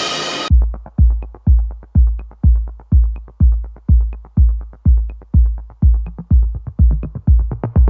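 Electronic dance music with a steady kick-drum beat. About half a second in the full mix drops away to a muffled kick beat, about two thuds a second, and the full mix comes back at the very end.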